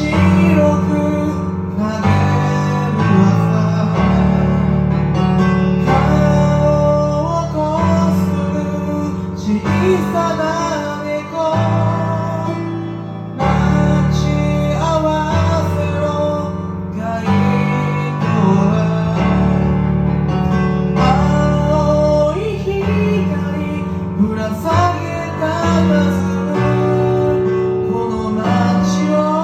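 Pop band music with guitar and bass, a melody line running over the chords.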